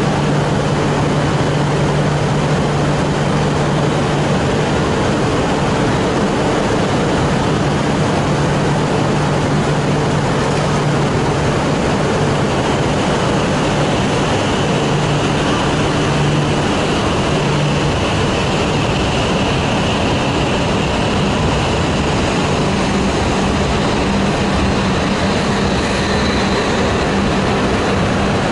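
E6-series Shinkansen coupled to an E5-series set, moving along the platform with a steady rolling and running noise. A low hum shifts up to a higher pitch about two-thirds of the way in.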